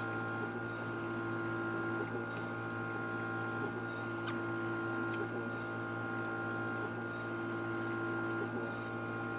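Steady electric hum of a small motorised appliance, with a faint regular pulse about every second and a half. A brief faint high squeak comes about four seconds in.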